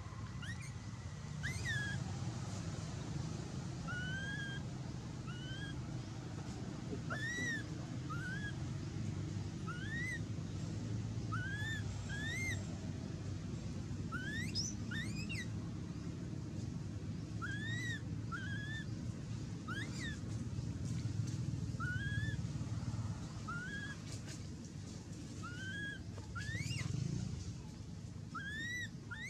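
Baby long-tailed macaque giving repeated short, high coo calls, about one a second, each a rising-then-falling whistle, over a steady low rumble.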